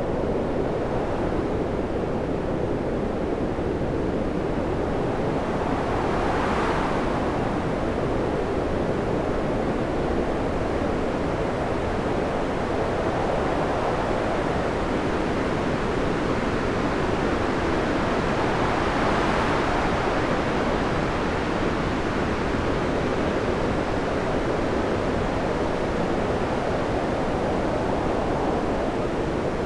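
Stormy sea: waves surging and breaking in a steady roar of surf, with a couple of louder swells crashing about six seconds in and again near the twenty-second mark.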